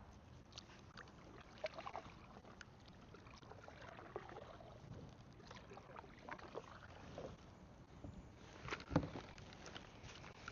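Quiet handling noise aboard a fishing kayak: scattered light clicks and knocks with faint water sounds, and one louder thump about nine seconds in.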